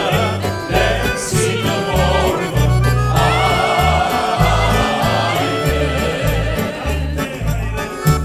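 Upbeat festive music with a steady bass beat and voices singing.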